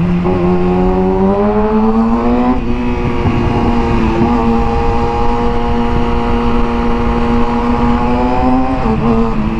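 Motorcycle engine under way, heard from a helmet-mounted camera. Its pitch climbs over the first two or three seconds as it accelerates, then holds steady at cruising speed, with wind rushing over the microphone.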